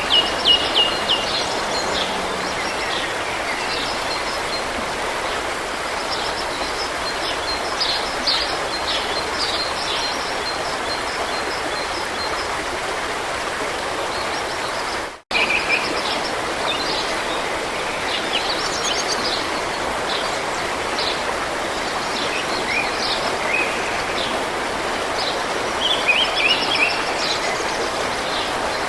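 Forest stream running with a steady rush of water, while small birds sing repeated chirps and trills over it. The sound cuts out for an instant about halfway, then resumes unchanged.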